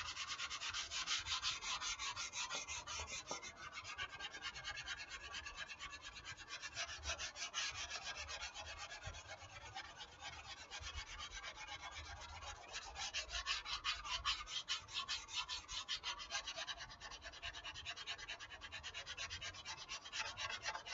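Hand-held 220-grit dry sandpaper rubbed in rapid, continuous back-and-forth strokes over dried wall spackle on a foam model-airplane wing, taking the excess filler down.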